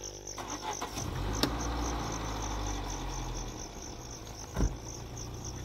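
Crickets chirping in a fast, even pulse, with a low rumble underneath. A sharp click comes about a second and a half in, and a louder thump comes near the end.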